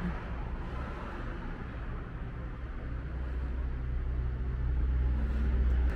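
Low, steady rumble of road traffic with a faint engine hum, growing louder toward the end.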